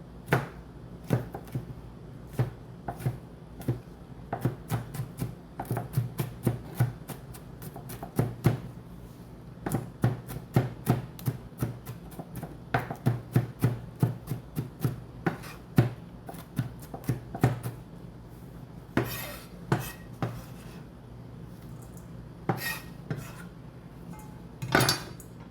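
Kitchen knife chopping bell pepper on a cutting board: runs of sharp knocks, two or three a second, thinning out about three-quarters of the way through, with a few louder, rougher strokes near the end.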